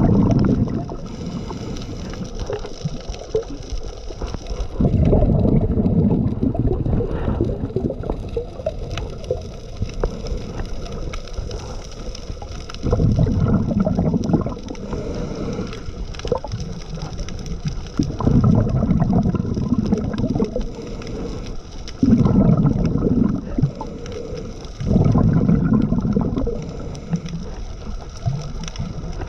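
Scuba diver breathing through a regulator underwater: exhaled air bubbles out in loud, low, gurgling bursts of about two seconds, six or so of them a few seconds apart, with quieter stretches of breathing between.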